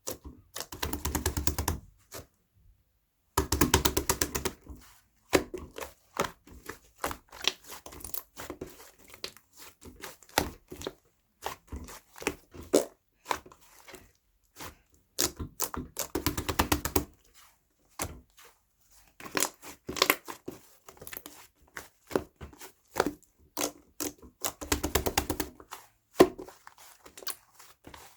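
Irregular clicks and knocks, broken by four bursts of fast ticking or ripping that each last about a second.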